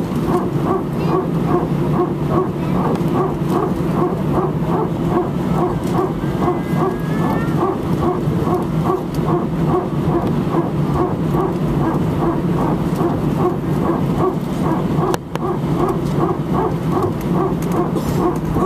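Airbus A319 hydraulic power transfer unit (PTU) running, heard from the cabin as a rapid, even barking or whining pulse about three times a second over the steady hum of the aircraft. This is the well-known A320-family 'barking dog' sound, typical of single-engine taxi or engine start.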